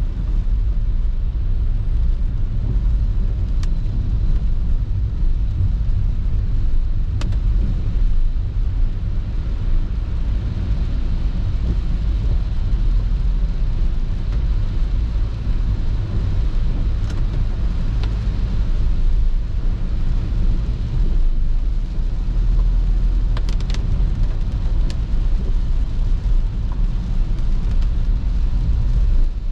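Car driving on a wet road, heard from inside the cabin: a steady low rumble of engine and tyres, with a few brief sharp ticks scattered through.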